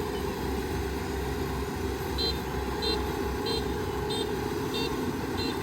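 Kubota ER470 combine harvester's diesel engine running steadily. About two seconds in, a high electronic warning beeper starts, beeping evenly about three times every two seconds.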